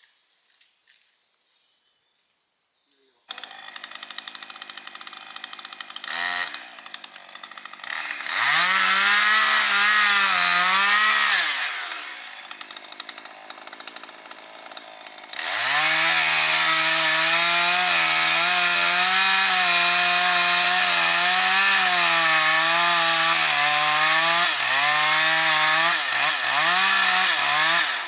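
Two-stroke chainsaw starting about three seconds in and running at a low throttle, then revving briefly. It then runs at full throttle for about twelve seconds, its pitch wavering as the chain cuts wood, and drops back in short dips near the end.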